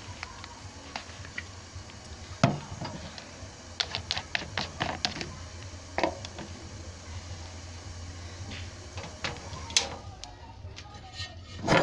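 Dishes and utensils being washed by hand, clinking and knocking against each other and a plastic basin in a series of sharp clicks. There is a loud knock about two and a half seconds in, a quick run of clicks a little later, and a louder clatter near the end.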